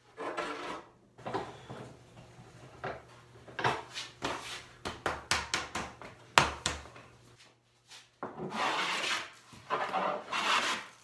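A rough-sawn walnut board being handled on a wooden workbench, with scrapes and several sharp wooden knocks. From about eight seconds in, a scrub plane takes two long rasping strokes along the board's face, each about a second long.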